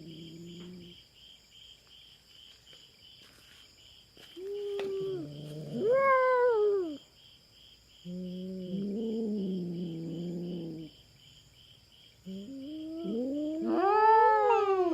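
Cats caterwauling in a territorial standoff: four long yowls, some low and drawn out, others rising into higher wails, with a rising one near the end. Crickets chirp steadily underneath.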